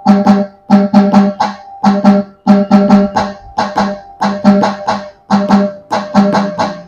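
Tasha drum sounds played by hand on a Roland HandSonic electronic percussion pad: a repeating pattern of quick strikes in short runs, each run several hits long, with a ringing pitched tone under every hit.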